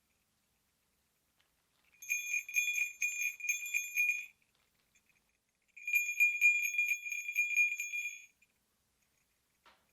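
Sleigh bells shaken in two bursts of about two seconds each, a rapid jingle ringing at one clear pitch, with silence between the bursts.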